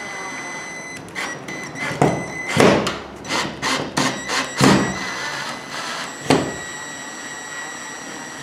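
Cordless drill-driver driving a screw through a light batten into a UX6 plug in a plasterboard ceiling, in a run of short bursts, the last one about six seconds in.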